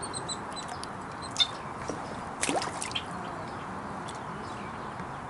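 Water dripping and lapping with small splashes around a kayak, with a few light clicks scattered through it, the sharpest about a second and a half in.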